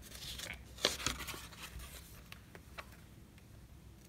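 Paper pages of a Canson sketchbook being handled and turned: a few short rustles and soft ticks, most of them in the first second and a half.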